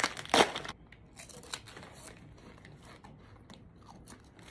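A foil chip bag being torn open and crinkled, loud for about the first second, then only faint scattered crinkles and crunches.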